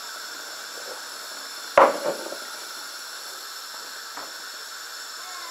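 Pot of peas boiling under a glass lid, giving a steady hiss, with one sharp knock about two seconds in and a fainter one later.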